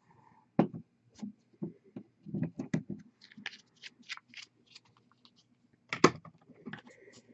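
Irregular clicks, taps and light knocks of small objects being handled on a desk, with two louder knocks: one about half a second in and one about six seconds in.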